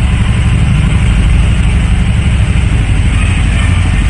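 Small motorcycle engine running steadily, loud and close, with a fast low engine pulse.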